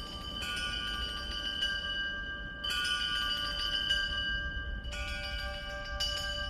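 Background music of bell-like chime tones, struck afresh four times and left to ring on.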